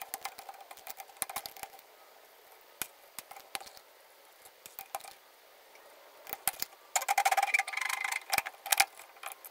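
Scattered metal clicks and clinks from bolts being worked out of a TH400 transmission's cast front pump and the parts being handled. A dense rattling run of clicks comes about seven seconds in.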